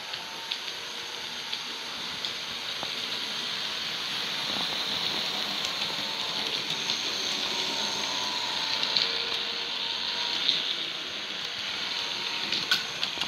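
Athearn flywheel-drive model locomotives running, a steady whirring hiss of small electric motors and wheels rolling on the track, a little louder in the middle as the passenger cars pass close by, with a few sharp clicks scattered through.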